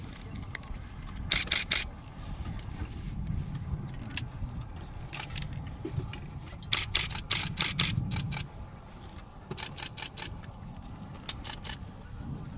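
Camera shutters firing in rapid bursts, four runs of quick clicks with the longest, about a second, near the middle, over a steady low rumble.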